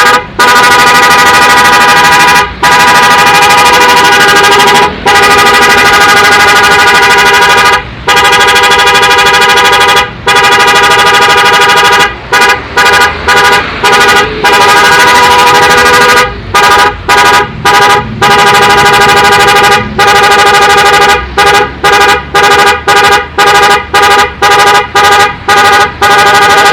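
Aftermarket 'prikitiw' car horn sounding loud and at a steady pitch. It gives several long held blasts, then runs of short rapid toots.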